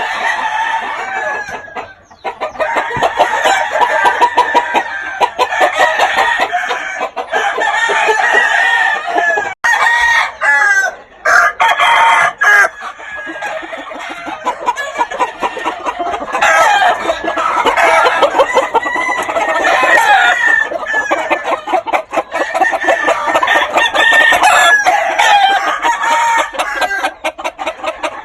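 Several gamefowl roosters crowing over one another, their calls overlapping almost without a break, with clucking among them.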